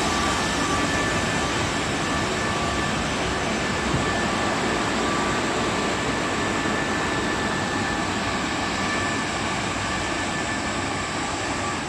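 Tunnel car wash's air-drying blowers running with a steady, loud rushing of air and a faint steady whine from the fans, blowing the remaining water off the car body after washing.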